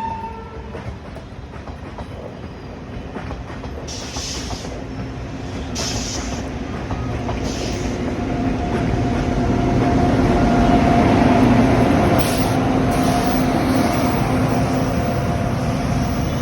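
A train hauled by a WAP-5 electric locomotive and a freight train running into the station side by side: steady rumble and wheel noise with some clickety-clack, growing louder over about ten seconds and then holding. A steady hum joins in from about eight seconds in.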